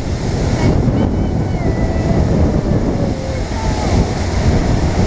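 Wind buffeting the microphone of a camera on a bass boat under way, with water rushing and splashing along the hull.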